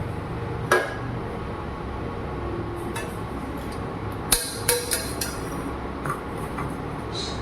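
Drinking glasses and metal kitchen utensils clinking and knocking together as the kadha is strained and served. A few sharp clinks are spread out, with a quick cluster of four about four seconds in, over a steady low hum.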